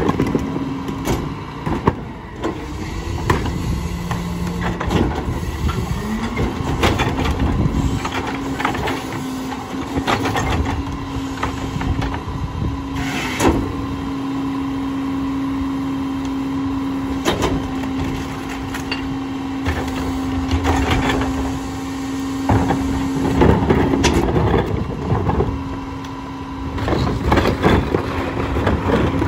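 Rear-loader garbage truck running at the curb, its engine note stepping up about six seconds in and holding steady, while plastic wheeled carts knock and clank against the hopper as they are emptied into it.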